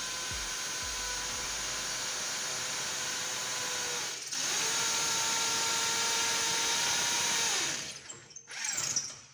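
Corded electric drill running as it bores a hole into the wall. The motor dips briefly about four seconds in, runs on a little louder, then winds down near the end, followed by a short clatter.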